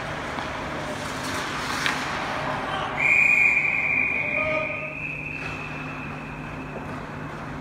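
Referee's whistle: one long, steady blast that starts sharply about three seconds in and trails off over the next two seconds, over a steady background of rink noise. A single short knock comes shortly before it.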